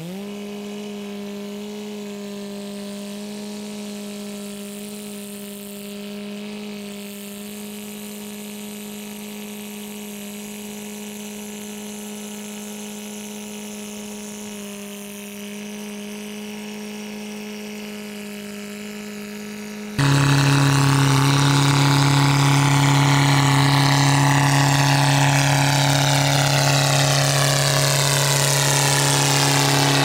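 International Harvester TD-7C crawler dozer's diesel engine running steadily while the dozer drives. About two-thirds of the way through, it turns suddenly much louder and deeper, heard close up.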